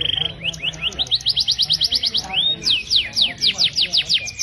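Male hybrid finch (mule) singing: a brief buzzy trill, then a fast run of rising chirps at about ten a second, a single upward slur, and a series of sharp falling whistles near the end.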